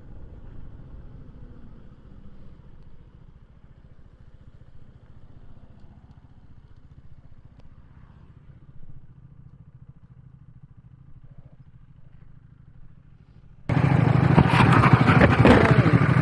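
Motorcycle engine running, faint and muffled at first; about three-quarters of the way through the sound jumps suddenly to a loud engine mixed with wind rush on the microphone while riding.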